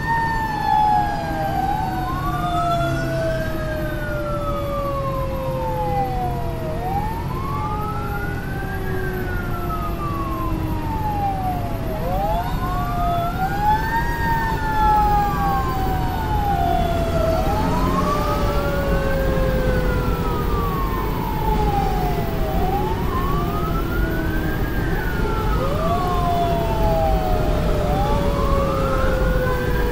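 Fire engine siren heard from inside the cab while driving: a wail rising and falling about every five seconds. A second siren tone jumps up and slowly winds down over about twelve seconds, twice, over the engine's low rumble.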